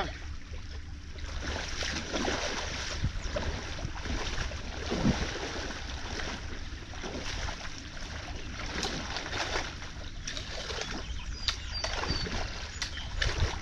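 Creek water flowing strongly through an opened beaver dam, with splashing and sloshing in the current.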